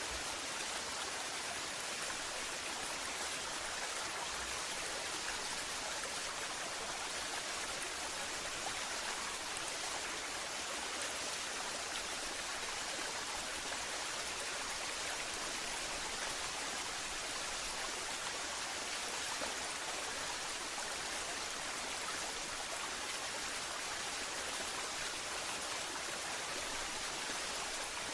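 Waterfall: water falling in a steady, even rush, mostly hiss with little low rumble.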